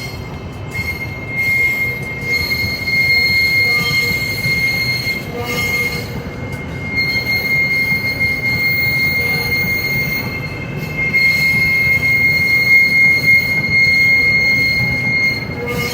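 Hitachi-built SRT Red Line electric commuter train moving through a depot yard, its wheels squealing with a steady high-pitched tone over a low rumble of running gear.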